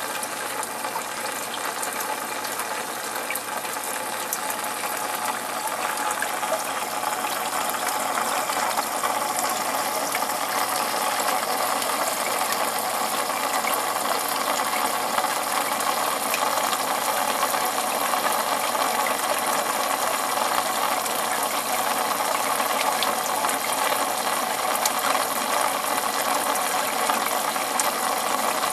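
Steady running, bubbling water of an aquarium's circulation, with a fine crackle through it; it grows a little louder about seven seconds in.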